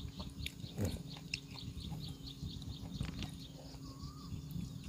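Fingers handling and twisting a bunch of fresh long bean (sitaw) stems to knot them, giving faint rustles and a few small clicks. Behind them, a rapid run of short, high chirps repeats about four to five times a second.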